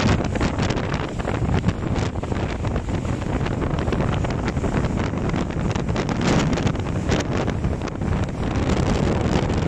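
Strong wind buffeting the microphone, over the rush of water streaming along the hull of a Grand Soleil 39 sailboat under sail. It goes in uneven gusts throughout.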